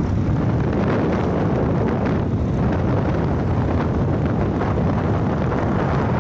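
Steady wind rush buffeting the microphone while riding a vehicle at speed, with running and road noise underneath.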